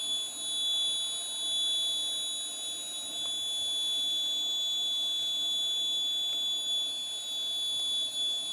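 Piezo buzzer on a Raspberry Pi Pico alcohol-detector board sounding one continuous high-pitched tone. It is the alarm for alcohol detected at the MQ3 sensor, with the engine locked off.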